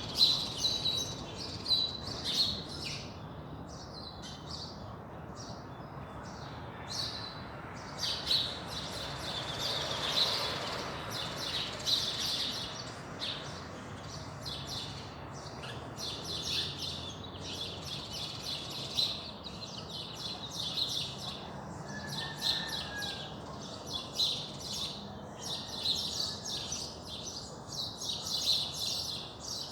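Dawn chorus: many small birds chirping and trilling at once, in a dense, continuous overlapping pattern over a steady low background noise.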